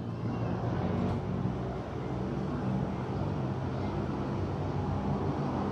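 Coin-operated kiddie train ride running around its oval track, a steady low hum.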